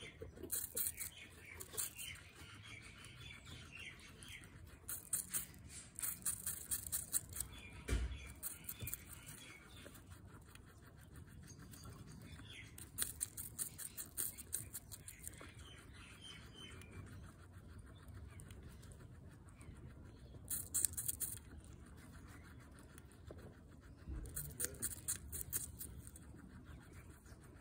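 Guinea pig biting into and chewing a slice of fresh apple: several bouts of rapid, crisp crunching a second or more long, with quieter pauses between them. A single dull thump about eight seconds in.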